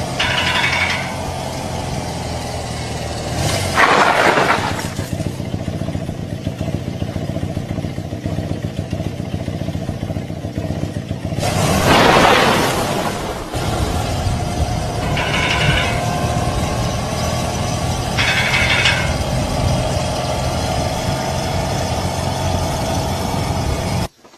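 Motorcycle engine running with a steady low hum, broken by three short high-pitched squeals and two loud rushing bursts, about four and twelve seconds in.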